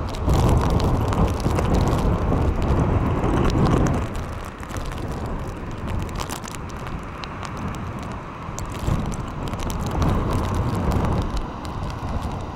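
Gusty wind buffeting the microphone, heaviest over the first four seconds, then easing.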